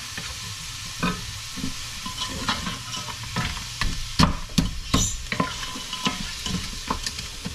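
Chopped onions, garlic and frozen diced peppers sizzling in oil in a pot while a wooden spoon stirs and scrapes through them, knocking irregularly against the pot, with a few louder knocks around the middle. The vegetables are sweating, the frozen peppers thawing in with the onions.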